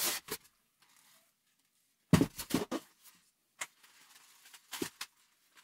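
Handling noises from unpacking a speaker box: a few short knocks and rustles of the packing material and cardboard, the loudest cluster about two seconds in.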